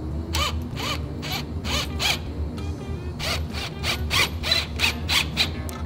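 Cordless ratchet run in short rasping bursts, several to a second in two runs, as it runs a long bolt into the frame through the skid plate.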